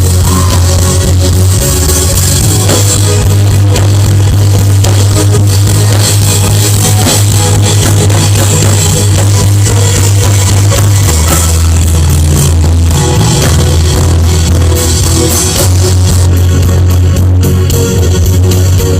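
Worship band music playing without singing, with a steady bass line, guitar and drums.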